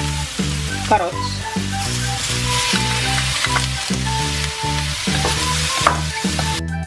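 Sliced carrots and vegetables sizzling in hot oil and butter in a steel wok, stirred and tossed with a wooden spatula. The sizzle cuts off abruptly shortly before the end, over a background music track with a steady beat.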